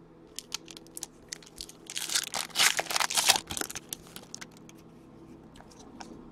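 Foil wrapper of an Upper Deck SPx hockey card pack being torn open and crinkled by hand: scattered small crackles, with a louder run of crinkling from about two to three and a half seconds in.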